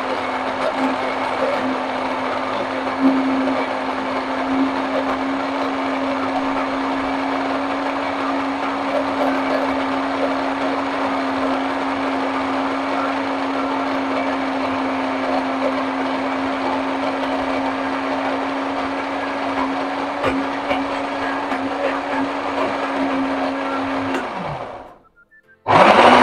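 Electric countertop blender grinding soaked red lentils (masoor dal), with very little water, into a thick paste, its motor running steadily. Shortly before the end it is switched off and winds down to silence, then starts again, louder.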